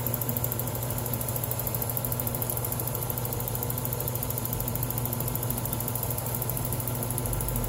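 Drill press running steadily while its bit cuts through a stack of aluminum plates, peeling off long curling shavings, nearly through the hole.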